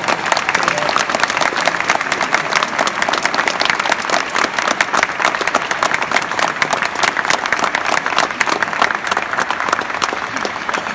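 Audience applauding, a dense, steady patter of hand claps.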